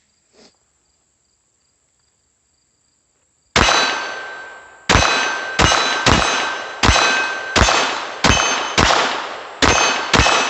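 Glock 44 .22 LR pistol fired ten times in quick succession, about one shot every two-thirds of a second, each shot followed by the ring of a steel target being hit.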